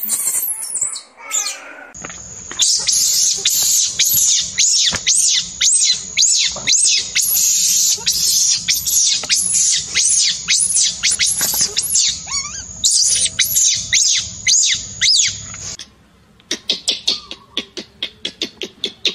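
Baby monkey screaming: a fast run of shrill squeals that rise and fall, several a second, breaking off about three-quarters of the way through, then a softer run of short squeaks near the end.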